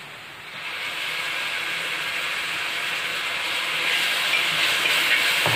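Onions frying in hot coconut oil sizzle as green chilli paste is spooned into the pan. The sizzle starts about half a second in and builds a little.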